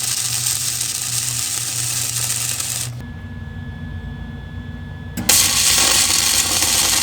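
MIG welding arc from a Lincoln Electric Mig-Pak 180 wire-feed welder, a steady frying crackle as the bead is laid straight down. The arc cuts off suddenly about three seconds in, leaving a low hum, then strikes again about two seconds later, louder.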